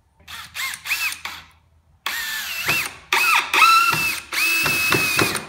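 Cordless drill-driver driving wood screws into a pine bench leg. It gives a couple of short bursts, then longer runs from about two seconds in, with a whine that bends in pitch as the screws bite.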